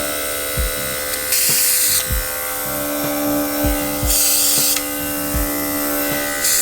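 Cordless airbrush compressor motor running with a steady hum. Twice, the airbrush trigger is pulled and the air and colour mix hisses out in a spurt lasting under a second, with a third spurt starting right at the end.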